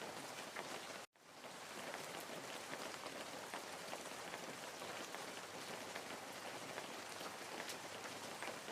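Steady rain falling, an even hiss with many small drop ticks. About a second in, the sound cuts out abruptly and fades back up within a second, like an edit in the rain track.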